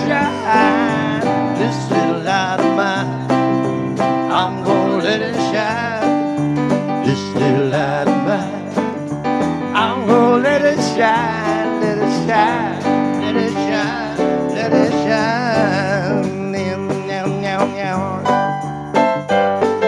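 Live band playing a country-style song, with guitar, keyboard and drums and a vocalist singing over them.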